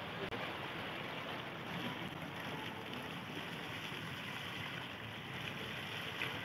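Decorative fountain jets splashing down into a pool: a steady rush of falling water.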